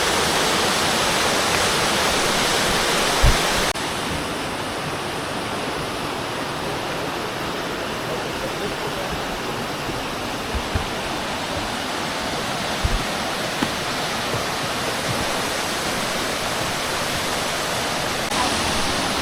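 Waterfall: a steady rush of falling water, which drops abruptly in level and brightness about four seconds in, with a few brief low bumps.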